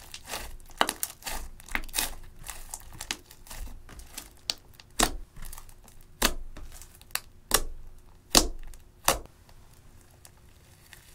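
Hands squeezing and kneading clear slime mixed with eyeshadow, giving a run of wet squelches and sharp pops as trapped air bursts out, several a second. The pops stop about nine seconds in.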